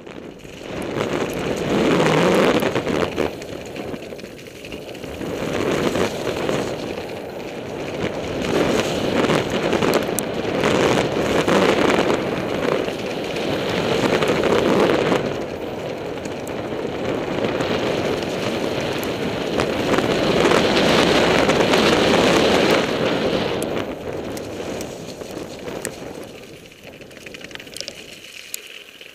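Mountain bike descending fast on a gravel forest trail: a continuous rush of wind on the microphone and tyres on loose ground, with frequent small rattles and clicks from bumps. The rush swells and eases with speed and dies down near the end.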